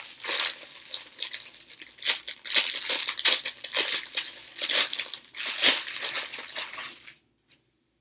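Clear plastic packaging bag crinkling and crackling in irregular bursts as it is handled and pulled open; it stops suddenly about seven seconds in.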